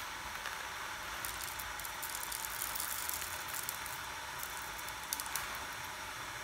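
Coffee beans poured in small amounts from a paper bag into a hand grinder's hopper to weigh out a dose, making light scattered rattles in short spells over a steady hiss.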